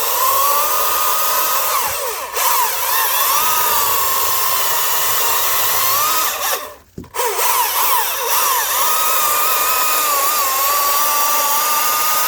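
Husqvarna 540i battery-powered chainsaw running at full speed and cutting small trees with its stock chain, the motor's whine wavering and dipping as it takes load. It stops for a moment about seven seconds in, then runs again.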